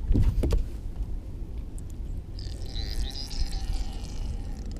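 Low rumble of wind buffeting a body-worn microphone, with clothing rubbing against it. A few light handling clicks come at the start, and a faint scratchy rustle in the second half.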